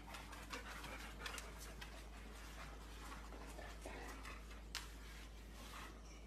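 Faint, irregular clicks and scuffs of a golden retriever puppy's paws and claws on a laminate floor, with one sharper click about three-quarters of the way through.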